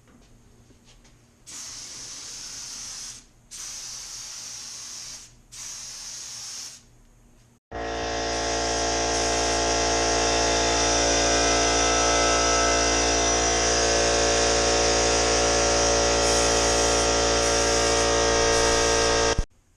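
HVLP gravity-fed spray gun spraying primer in three hissing bursts of a second or two each. About 8 seconds in, an air compressor starts with a sudden, much louder steady hum that runs on without change and then cuts off abruptly just before the end.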